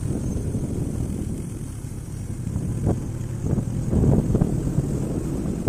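A motorbike running along the road, its engine and the rush of air making a steady low rumble that swells briefly a few times.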